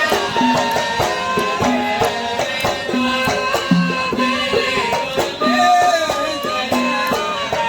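Kuwaiti-style sawt music played by a live band: melody instruments over a steady, regular drum beat.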